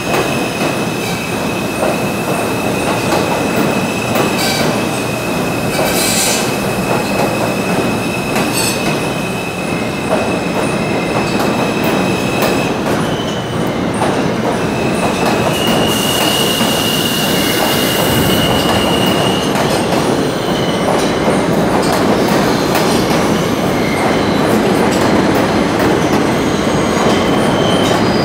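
New York City subway train of Alstom R160A-2 cars pulling out of the station past the platform: a steady loud rumble of wheels on rail with occasional clicks over the rail joints. A thin high wheel squeal is held for about half the time, breaks off, then comes back briefly.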